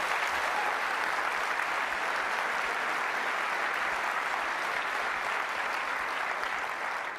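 Large audience applauding steadily, the applause dying down near the end.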